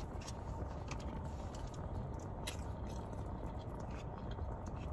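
Someone chewing food, with a few short wet mouth clicks, over the steady low hum inside a car.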